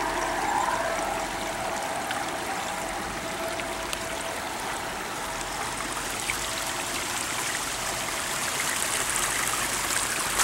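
Water running steadily through the garden railway's stream and pond, an even hiss. A faint steady tone sits underneath and fades out about two-thirds of the way through.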